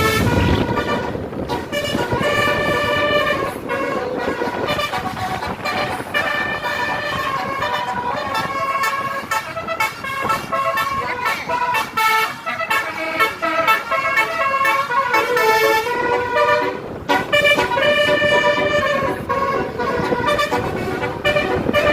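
A bus's basuri telolet horn playing a tune: a long run of loud, changing notes in short steps, broken by a few brief gaps.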